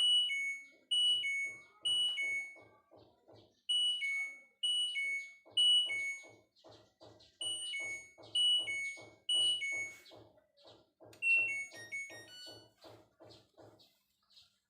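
Front-loading washing machine's control panel beeping: a falling two-note alert repeated in three sets of three, then a short quick run of tones about eleven seconds in. Underneath, a steady rhythmic pulsing of about three beats a second.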